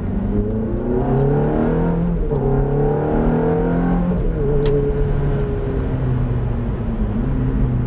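Ferrari F430's 4.3-litre V8 accelerating hard, heard from inside the cabin. Its pitch climbs, drops sharply at an upshift about two seconds in, climbs again to about four seconds in, then steadies and eases off.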